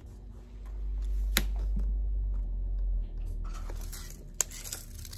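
Hands working over Dacron batting on a padded chair back: soft rustling and rubbing, with a low rumble in the first half and a couple of sharp clicks.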